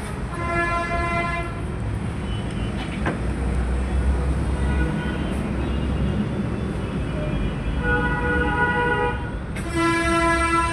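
Several long horn blasts, each a held tone lasting about a second, over a low steady rumble; the longest starts near the end.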